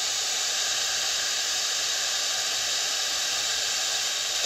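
Static from a 12-band digital radio receiver's speaker: a steady hiss with no station coming through.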